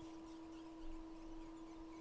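Faint, steady electrical hum from microsoldering bench equipment, one low tone with a fainter higher tone over soft hiss, with a brief soft knock about a second in.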